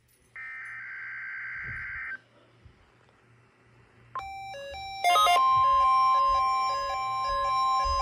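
End of a NOAA Weather Radio SAME digital header burst, a buzzy data screech that stops about two seconds in, marking the start of the required weekly test. After a short pause, several Midland weather-alert receivers start their alert beeps about four seconds in, in repeating on-off patterns at different pitches. About a second later the steady warning alarm tone joins.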